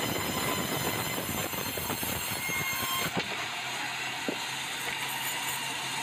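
Band sawmill blade sawing through a large red meranti log with a dense, grinding rasp. About three seconds in, the blade clears the end of the log and the cutting noise drops away, leaving the saw running free with a steady low hum and one short click.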